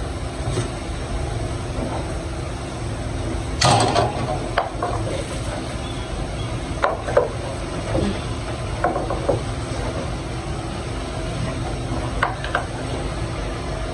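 A wooden spatula knocks and scrapes irregularly against a speckled granite-coated pot as chopped carrots and peppers are stirred and turned, the loudest knock a little under four seconds in. A steady low hum runs underneath.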